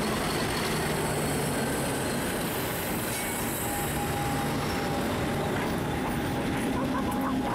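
Two Class 50 diesel locomotives, 50008 and 50015, passing close by as they pull a train away under power. Their English Electric 16-cylinder engines run with steady, dense noise over the sound of wheels on rail. A thin steady high tone joins a little past halfway as the locomotives and the first coaches go by.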